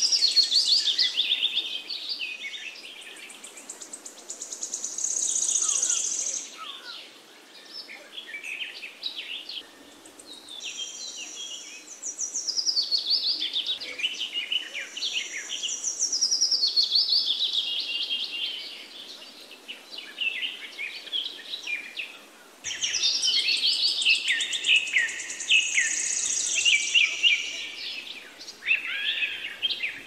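Several songbirds chirping and singing in overlapping bouts of quick high chirps and trills. The bouts come at the start, about five seconds in, from about eleven to nineteen seconds, and again from about twenty-three seconds on, with quieter gaps between.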